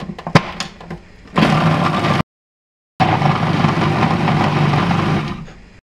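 Food processor running, its blade chopping shrimp, shallots and chilies into a paste, after a few clicks as the lid is fitted on the bowl. The motor noise breaks off abruptly for under a second, then runs on steadily and fades out near the end.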